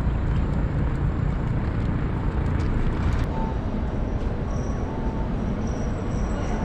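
Steady low rumble of outdoor city ambience, mostly distant road traffic, with a few faint short tones.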